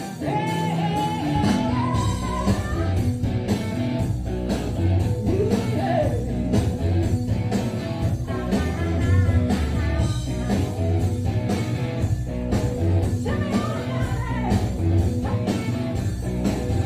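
A rock band playing live with a female vocal over it. The bass and drums come in at the very start, joining the guitar that was playing alone.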